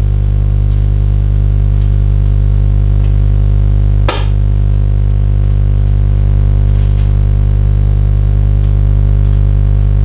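Home-built microwave gun powered by household microwave-oven magnetrons, running with a loud, steady mains hum while it keeps firing. One sharp crack about four seconds in.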